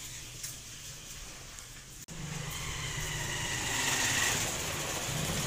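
Street traffic noise: a motor vehicle's engine hum swells after a sudden cut about two seconds in, over quieter lane ambience before it.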